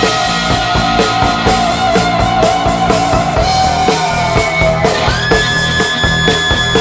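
Rock music with a drum kit keeping a steady beat under a held lead note; the note sinks slightly about four seconds in and a new, higher note takes over about a second later.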